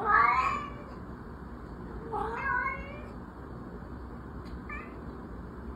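Domestic cat meowing: two drawn-out meows about two seconds apart, then a brief faint chirp near the end.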